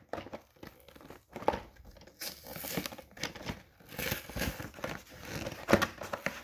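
Clear plastic blister packaging of a toy-train box crinkling and crackling as hands press and pry at it, unevenly, with a few sharper cracks.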